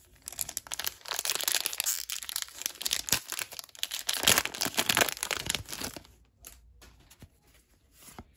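Foil Pokémon card booster pack crinkling and tearing as it is opened by hand, in two louder spells, stopping about six seconds in; after that only faint rustles of cards being handled.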